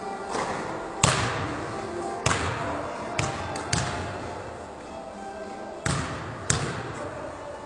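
Basketball bouncing on a hardwood gym floor: about eight irregular thumps, each echoing briefly through the empty hall. Faint background music runs underneath.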